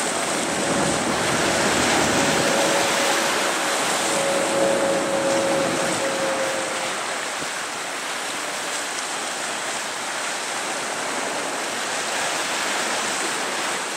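Steady rushing of choppy sea and wind. A faint steady tone runs through the first half and fades out about halfway through.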